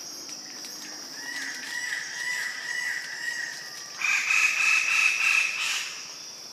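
Forest bird calling over a steady insect drone: a wavering whistled note about a second in, then a louder, harsher call from about four seconds in, lasting nearly two seconds.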